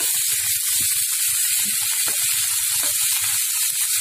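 Chopped cabbage, tomato and green chilli sizzling steadily in hot oil in a pan, stirred with a wooden spatula that gives soft irregular scrapes and knocks against the pan.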